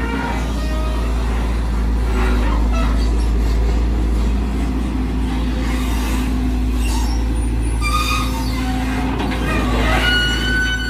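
Volvo EC210DL long-reach excavator's diesel engine running steadily under load as the boom swings and lowers the bucket, with a brief high squeal near the end.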